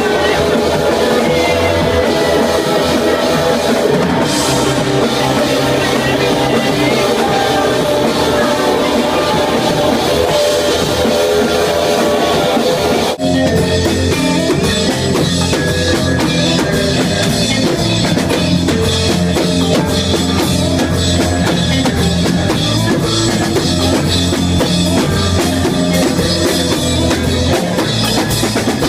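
Live rock band playing, drum kit and guitars. About 13 seconds in the music shifts abruptly to a new section.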